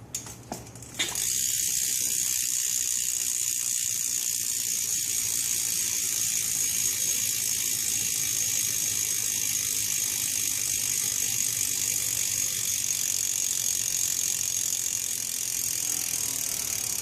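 BSD Backstreet rear hub on a BMX bike ratcheting as the back wheel freewheels. A few separate clicks come first, then from about a second in a fast, steady, high buzz of clicking that eases slightly near the end.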